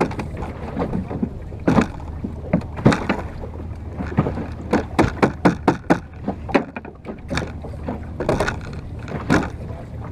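Choppy water slapping and splashing against the wooden bow of a small boat under way, in irregular splashes that come several a second around the middle, over a steady low rumble.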